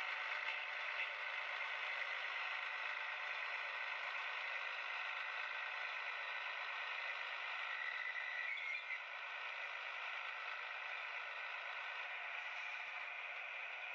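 OO gauge model of a Class 128 parcels diesel railcar running slowly on track, its sound decoder playing diesel engine sound through a small onboard speaker, thin with no bass, mixed with motor and wheel noise.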